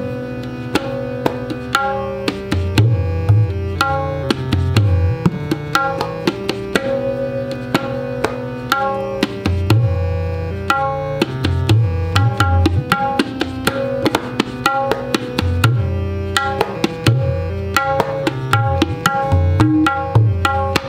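Tabla played in a seven-beat rhythmic cycle: quick, sharp strokes on the small right-hand drum (dayan) and deep bass strokes on the larger left-hand drum (bayan), over a sustained melodic accompaniment.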